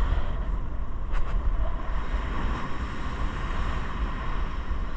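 Wind buffeting the microphone with a heavy low rumble, over the steady hiss of ocean surf breaking on the beach.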